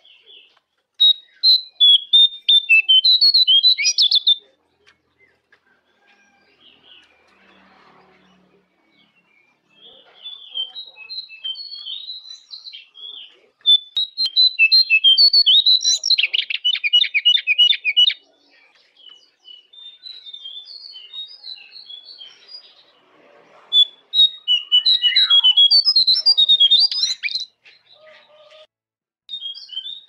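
Caged songbird singing the jongkangan-style song used as a masteran (training song for other songbirds): rapid high chirps and trills in three bouts, about a second in, from about ten seconds in with a fast buzzy trill near the middle, and again from about twenty-four seconds in, with quiet gaps between.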